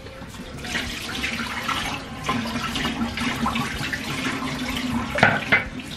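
Tap water running into a bathroom sink, with splashing and one louder splash or knock about five seconds in.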